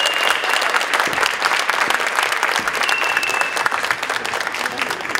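Audience applauding with dense clapping, with two short high steady tones cutting through, one at the start and one about three seconds later.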